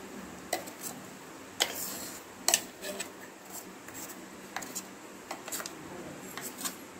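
A metal spoon scraping and tapping inside a stainless-steel mixer-grinder jar, with sharp clinks at irregular intervals about once a second, as a thick onion and green chilli paste is scooped out.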